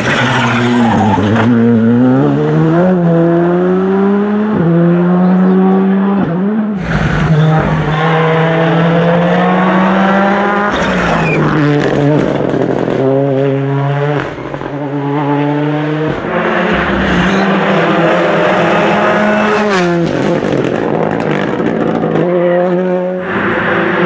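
R5 rally cars with turbocharged four-cylinder engines driven hard through tight tarmac bends, one car after another with abrupt cuts between them. The revs climb and drop sharply with each gear change.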